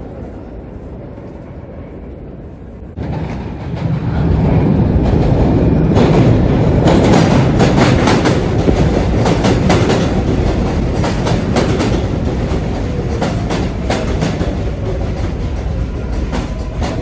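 New York City subway train running on the rails. A low rumble grows suddenly louder about three seconds in as the train comes close, then a rapid clatter of wheels over rail joints runs on from about six seconds in, with a faint steady tone near the end.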